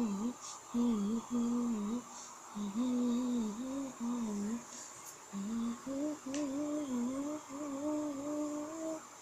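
A person humming a tune to themselves in short phrases with brief pauses between, the pitch wandering up and down and sitting a little higher in the second half.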